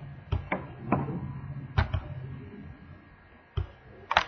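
Computer mouse clicks: several sharp clicks, some in quick pairs like double-clicks, as a file is selected and opened in Visual Studio.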